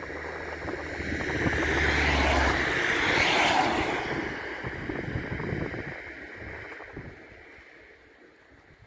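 A vehicle passing by: a rushing noise that swells over the first couple of seconds, peaks about three seconds in, then fades away.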